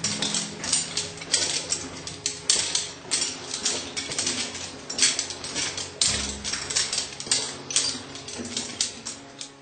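Footsteps crunching and scuffing on a gritty tunnel floor, irregular sharp clicks about three a second, over a low steady hum that changes pitch about six seconds in.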